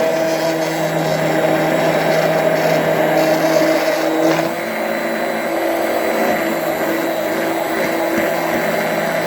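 Immersion blender running steadily in a glass of hot milk, whisking it as the beaten egg goes in. Its motor note shifts and drops a little about four and a half seconds in.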